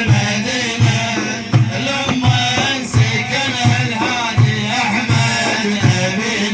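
Instrumental interlude of Middle Eastern music: a steady, evenly repeating drum beat under a winding melody, with no singing.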